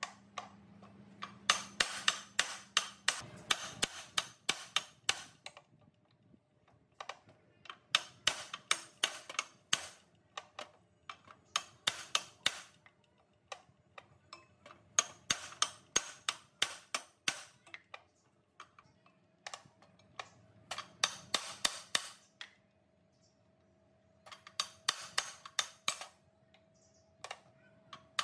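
Repeated hammer strikes on metal, in bursts of quick blows several a second with short pauses between.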